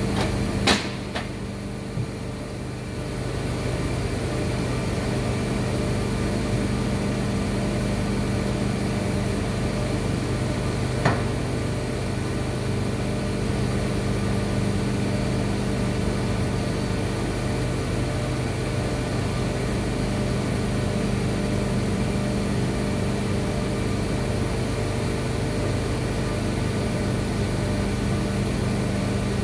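Steady hum of plastic injection moulding machinery running in a factory, a constant low drone with several fixed tones. A few sharp knocks sound in the first two seconds and one more clunk about eleven seconds in.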